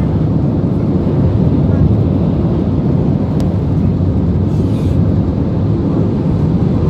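Automatic car wash equipment heard from inside the car's cabin: a steady, loud rushing rumble.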